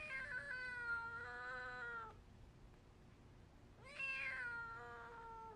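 A four-and-a-half-month-old kitten meowing twice, each a long drawn-out call of about two seconds, the second starting about four seconds in. The kitten is not yet used to people, and the calls are taken as a sign that it is scared.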